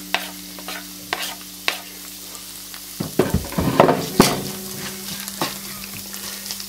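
Onions and garlic sizzling in a non-stick frying pan, with a plastic slotted spatula clicking and scraping against the pan as it stirs, busier from about three seconds in. A steady low hum runs underneath.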